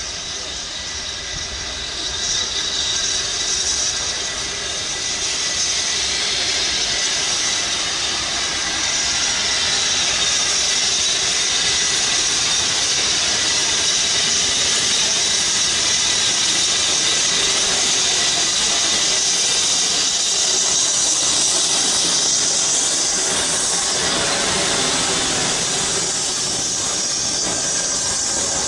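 BR Standard Class 9F steam locomotive 92134 running past with its train of Mk1 carriages: a steady hiss of steam over the noise of the train on the rails, growing louder over the first few seconds as it nears.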